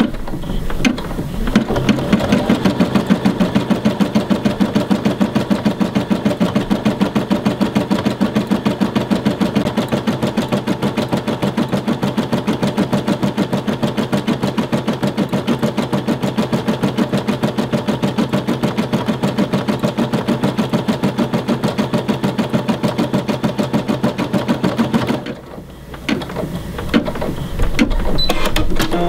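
Brother computerized embroidery machine sewing, a fast, even run of needle strokes as it stitches an outline around a filled triangle. It drops off briefly a few seconds before the end, then runs again.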